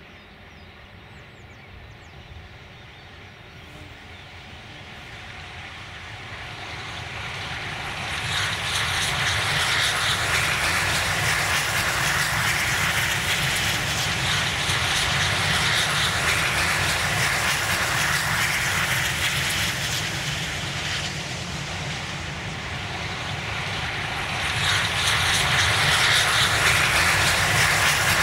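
Steam locomotive 354.195, built by ČKD in 1925, hauling a passenger train: a steady rushing run with a low rumble that grows louder over the first eight seconds, eases a little after twenty seconds, and swells again near the end as the train comes close.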